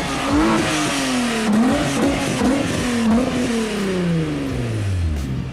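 Volkswagen Vento's VR6 engine being revved, its pitch rising and falling several times, then dropping away near the end.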